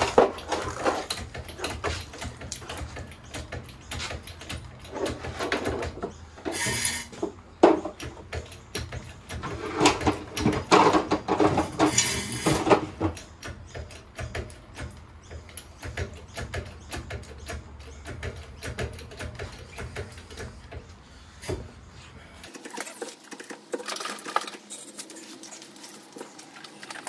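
Irregular clicks, knocks and rustling of hand work at a caravan's brake drum, hub and jack, busiest a few seconds in and again around the middle.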